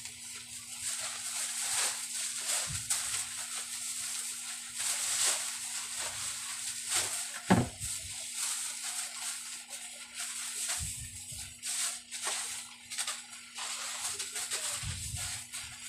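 Plastic grocery bags rustling and crinkling as they are handled and filled, with one sharp knock about seven and a half seconds in and a steady low hum underneath.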